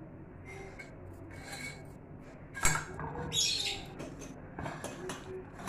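Kitchen handling noise from stainless steel bowls: one sharp clank about halfway through as a large steel mixing bowl is set down, then a brief scrape and a few light clinks.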